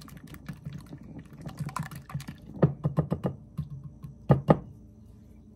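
Wire whisk beating an egg mixture in a glass bowl: a quick, even run of clicks against the glass, a few a second. About four and a half seconds in come two sharp knocks as the whisk is tapped on the bowl's rim.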